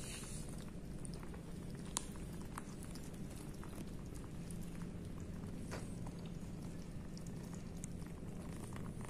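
Kittens eating from a plastic bowl: small wet chewing and lapping clicks, one sharper click about two seconds in, over a steady low purr.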